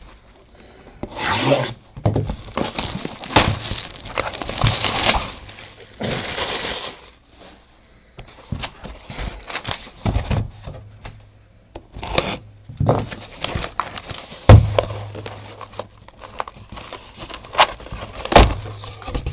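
Plastic shrink wrap crinkled and torn off a cardboard box, then the cardboard box and lid rubbed, scraped and knocked as it is opened, with a thump about fourteen seconds in.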